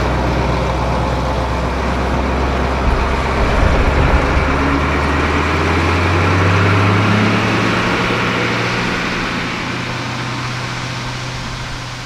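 GMC C7000 dump truck's 8.2-litre Detroit Diesel engine pulling away and driving off. Its note rises in pitch about six seconds in, then fades steadily as the truck moves away.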